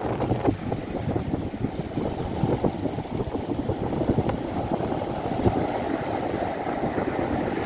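Strong wind buffeting the microphone in a dense, fluttering rumble, over waves breaking on the beach.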